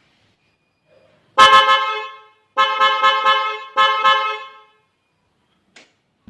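A pair of CZR motorcycle horns wired through a relay sounding very loud: one blast of about a second, then a run of short, quick honks.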